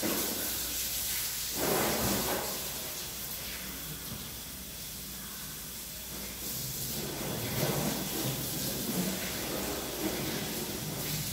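Water spraying from a hose and splashing over a car's body and the wet ground, a steady hiss that grows stronger in spells about two seconds in and again from about seven seconds on.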